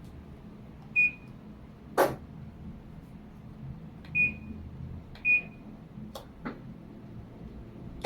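A Panasonic automatic washing machine's control panel giving short, high single beeps at irregular intervals, four in all, mixed with a few sharp clicks or knocks; the loudest knock comes about two seconds in.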